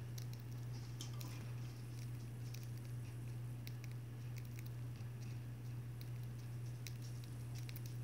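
Budgie cracking and husking seeds at a seed cup: faint, quick, irregular clicks, about two a second, over a steady low hum.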